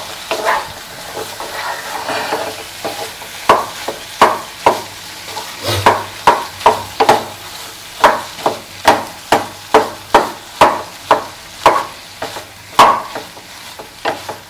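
Spatula stirring boiled potatoes into tomato gravy in a pan and crushing the larger pieces, knocking against the pan. The knocks are softer for the first few seconds, then come steadily about twice a second.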